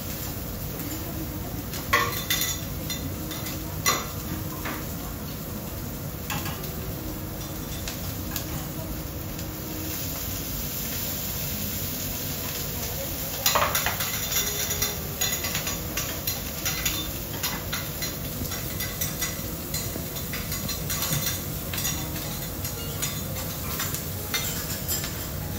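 Food sizzling on a teppanyaki iron griddle while metal spatulas clink and scrape against the plate. There are sharp clanks about two seconds and four seconds in, and a louder run of clattering about halfway through.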